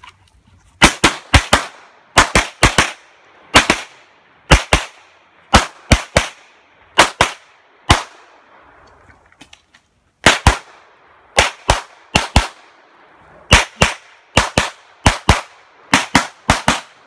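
Pistol shots fired in rapid pairs and short strings, about 35 in all, with a pause of about two seconds near the middle.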